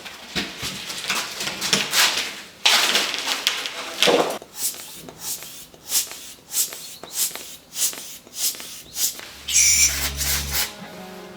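Repeated short scraping strokes, about two a second through the middle, with a brief steady hum about ten seconds in.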